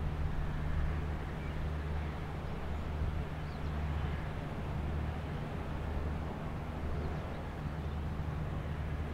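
Passing inland cargo ship's diesel engine droning steadily as a low, even hum, with a soft hiss over it.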